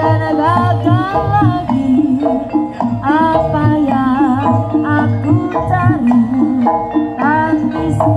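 Live kuda lumping accompaniment music played loud over loudspeakers: a high melody line that slides up into its notes and wavers, over a repeating low drum beat and clattering percussion.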